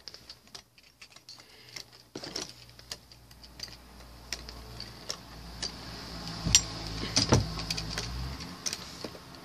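Two Beyblade metal spinning tops, Phantom Orion and L-Drago, whirring as they spin in a plastic stadium, with a stream of small clicks as they rub and knock together. Two sharp, louder clacks a little past the middle as they clash.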